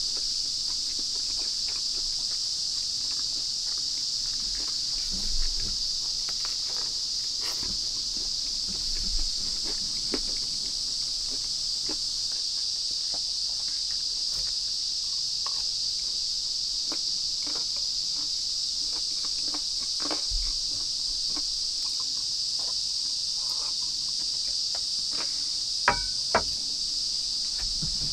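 Steady, unbroken drone of a summer insect chorus, with a few soft clicks and knocks scattered through it from eating and handling a cup at the table.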